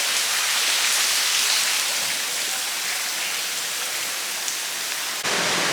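Steady rush of a waterfall, its falling water and spray hissing like heavy rain. About five seconds in the sound changes abruptly and becomes fuller and deeper.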